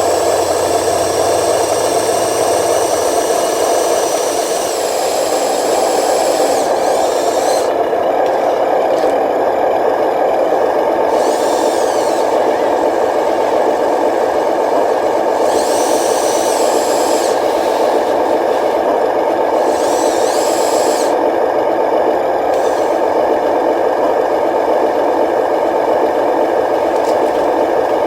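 Radio-controlled construction trucks running: a steady drone with rattling, and a high whine that rises and falls several times.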